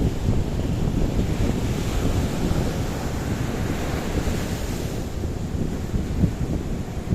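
Ocean surf with wind buffeting the microphone: a wave's hiss swells over a few seconds and fades about five seconds in, over a steady low rumble of water and wind.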